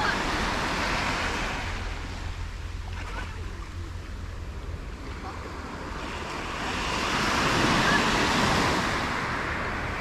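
Small sea waves breaking and washing up a sand-and-pebble beach, the surf swelling about a second in and again from about seven to nine seconds, over a low wind rumble on the microphone.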